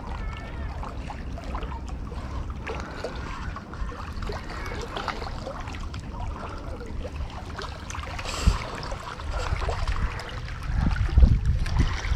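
Wind rumbling on the microphone over small waves lapping against shore rocks, with a few faint ticks of handling and a louder gust near the end.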